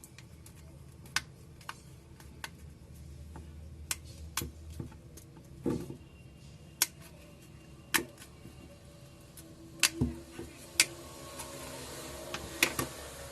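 Irregular light clicks and taps of a small tool and plastic and metal parts being handled on a smartphone, as its SIM tray is ejected and removed. A faint hiss comes in near the end.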